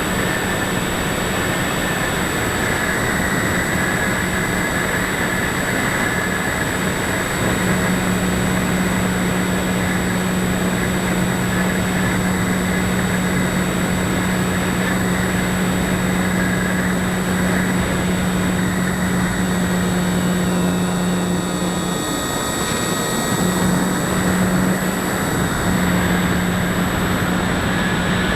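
Electric motor and propeller of a ParkZone Sport Cub RC plane running steadily in flight, a whine over a hum. The power eases briefly about three-quarters of the way through, then comes back up.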